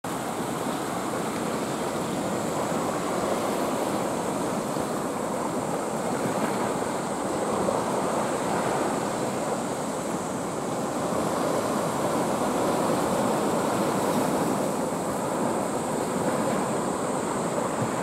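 Sea water washing over and around low reef rocks: a steady rushing wash that swells and eases slightly.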